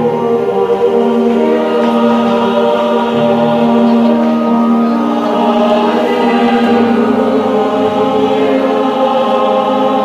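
Church choir singing in harmony, holding long sustained chords that move from one to the next.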